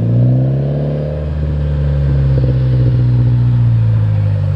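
Mitsubishi Lancer Ralliart's turbocharged 4B11T four-cylinder running at low revs through its exhaust. The engine note drops slightly in the first second or so, then holds steady.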